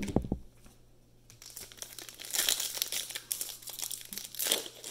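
Plastic cello wrapper of a Mosaic football card pack crinkling and tearing as it is ripped open by hand. A short thump comes right at the start.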